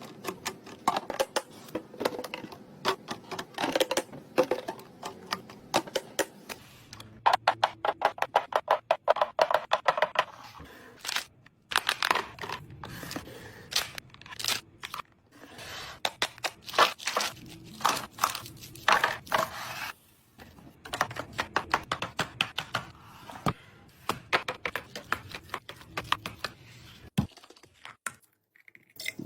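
Handling of food containers and packaging: a busy run of sharp clicks, taps and scrapes, with a few seconds of rapid clicking about seven seconds in.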